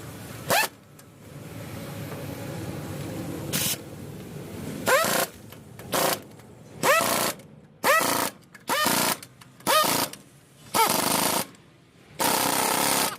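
Compressed-air tool fired in a string of short bursts, each with a brief whine as it spins, about one a second, the last two held longer.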